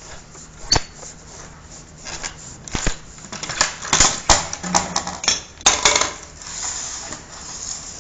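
Plastic drain pipe and a pipe cutter being handled and set up, sharp clicks and knocks with a quick rattling run in the middle, then a steady rasp near the end as the cutter goes through the pipe.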